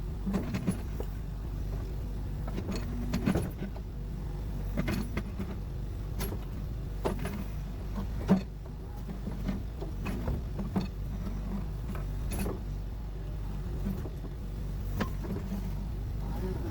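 Scattered knocks and metallic clinks of hand work on building materials over a steady low rumble, with one sharper knock about eight seconds in.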